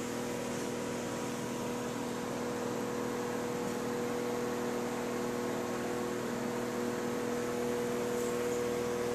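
Evaporative air cooler running: a steady electric motor hum with the even hiss of its fan.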